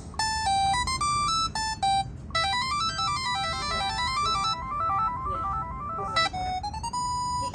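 A Pantech Flex phone ringtone: a synthesized melody of clean, bright beeping notes, with a fast run of rising and falling notes in the middle. Near the end the tune changes to another phrase that finishes on a long held note.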